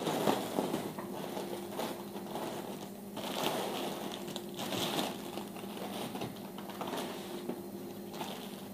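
Packaging crinkling and rustling in irregular bursts as a fabric shoe organizer is unwrapped and handled.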